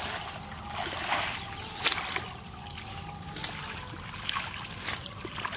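Hands sloshing and splashing in shallow muddy water while groping for fish, in irregular splashes about a second apart.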